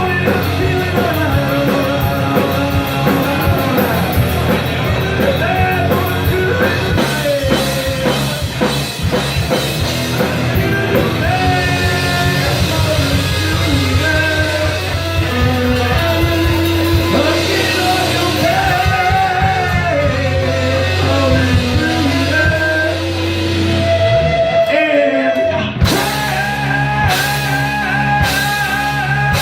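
A live rock band playing loud: electric guitar, bass and drums with sung vocals. About 25 seconds in, the music drops out for a moment, then the band comes back in with a sustained, ringing chord.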